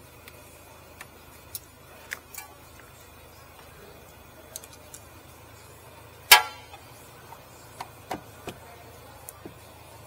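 Metal parts and tools being handled at a BMW F10's rear brake caliper: scattered light clicks and knocks, then one loud ringing metallic clank about six seconds in, followed by a few smaller knocks, over a steady low hum.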